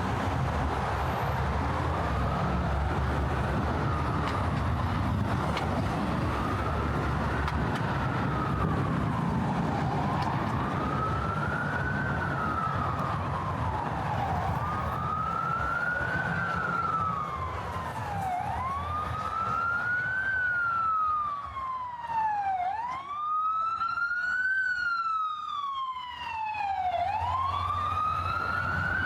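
An emergency vehicle's siren wailing, rising and falling about every four seconds and growing clearer through the second half, over a steady low rumble of city traffic.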